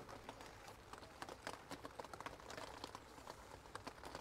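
Faint scattered metallic clicks and taps from a hand wrench working loose the manifold bolts on a Jeep Wrangler TJ engine, a few clicks a second.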